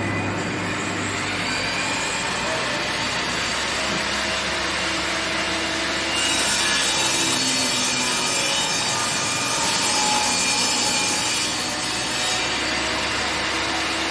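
DeWalt DWE7470 10-inch jobsite table saw running on a test cut after being cleaned and reassembled. About six seconds in, the blade cuts through a board, and the sound turns brighter and a little louder for some six seconds. It then drops back to the saw running free.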